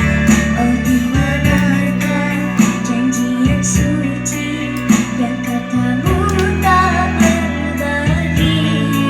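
A young girl singing a song over backing music with guitar and a steady drum beat.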